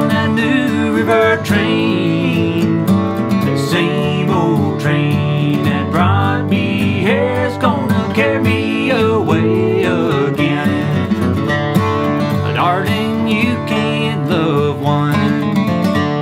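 Two acoustic guitars playing a bluegrass flatpicked instrumental break together, fast picked melody over strummed chords, with some notes bending in pitch.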